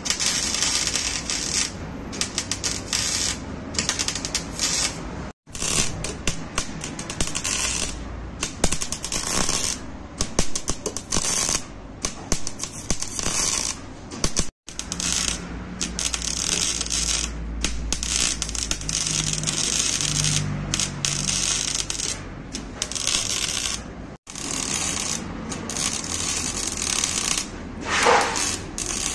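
MIG welding arc crackling on a steel frame patch, in short stop-start bursts as the welder lays stitch welds along the seam. A brief rising whine sounds near the end.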